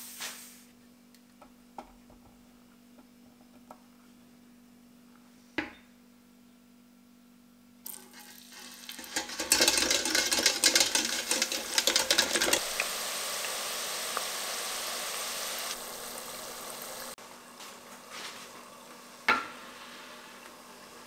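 Potato sticks lowered in a wire basket into deep-fryer oil at 190 °C: after a few light clicks and a knock, a sudden loud sizzling and crackling starts about eight seconds in, peaks for a few seconds, then settles to a steadier, quieter hiss. There is another knock near the end.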